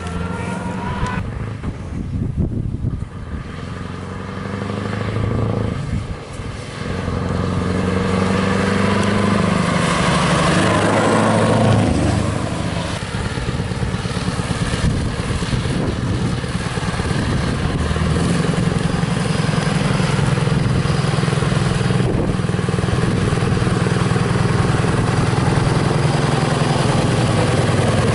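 Scania R500 tractor unit's V8 diesel engine running through a loud open exhaust pipe. It grows louder with the revs rising about ten seconds in as the truck approaches, then runs steadily and deeply at low speed close by.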